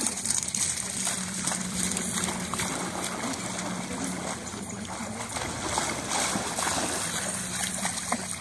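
Water sloshing and splashing as two pugs wade and swim through shallow floodwater, with a faint steady low hum underneath.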